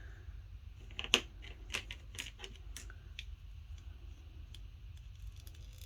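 Light plastic clicks and taps from a hard plastic action figure and its accessory being handled, a handful of sharp clicks from about a second in to past the three-second mark, over a faint low hum.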